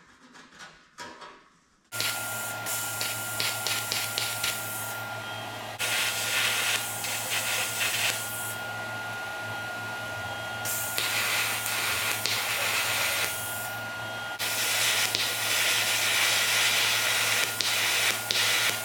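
A metalworking tool working on the steel tank: a steady hissing, crackling noise over a low hum that starts suddenly about two seconds in, its top end thinning out briefly a few times.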